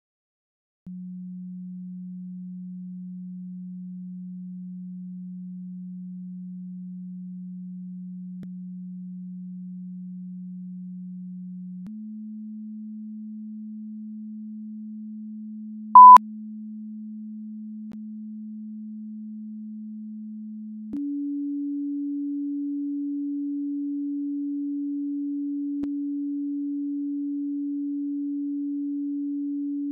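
A steady, pure electronic tone starts about a second in and steps up in pitch twice, getting louder at the second step. About halfway through, a short, loud, higher beep cuts in briefly.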